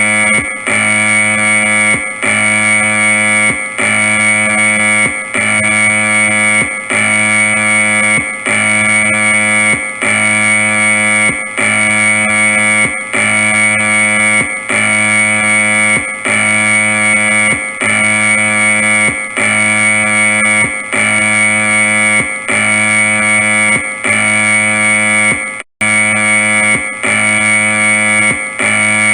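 Earthquake-drill alarm sound effect: a loud, harsh electronic tone pattern that repeats a little more than once a second, with a brief cut-out near the end.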